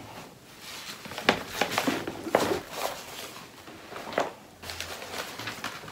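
Hard-shell suitcase being opened by hand: a few knocks and scraping rustles as the shell is handled and the lid is laid back open, the sharpest knocks about a second, two and a half and four seconds in.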